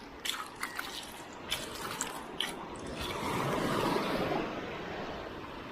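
Sea water splashing and dripping close by: several short sharp splashes in the first two and a half seconds, then a rising and falling wash of water.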